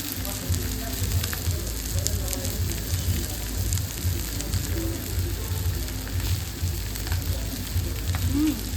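A steady crackling hiss with scattered faint clicks over an uneven low rumble, and faint voices in the background.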